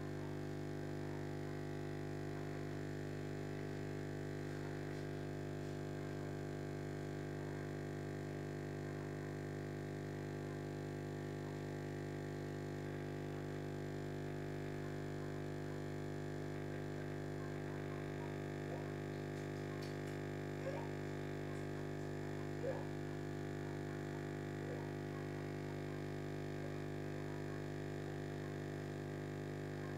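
Aquarium air pump humming steadily, a buzzing drone with many overtones. A few faint short blips stand out in the second half.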